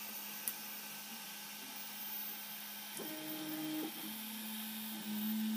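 Prusa i3 MK2 3D printer printing: its stepper motors hum in steady tones that switch on and off and jump in pitch as the print head changes moves. A steady whir runs underneath.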